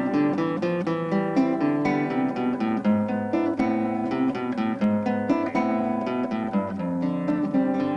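Acoustic guitar music, with quick strummed and plucked chords several times a second.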